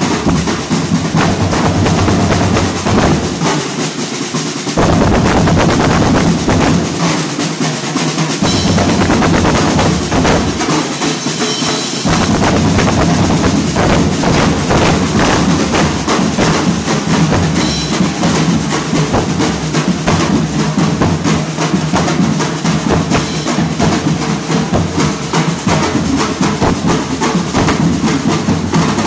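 Ati-atihan drum band playing a dense, continuous beat on snare drums, metal marching drums, timbales, a cymbal and large bass drums. The bass drums drop out briefly three times in the first twelve seconds, then keep playing under the rest.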